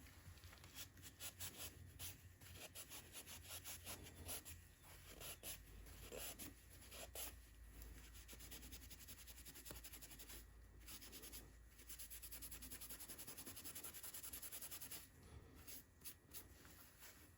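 Faint rapid back-and-forth rubbing strokes as a pocket knife blade is scrubbed with acetone to lift stuck-on gunk, with a couple of brief pauses.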